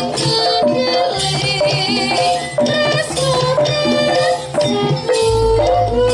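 Javanese campursari music played live for jaranan: a held-note melody over hand-drum rhythm and rattling percussion. A deep bass comes in near the end.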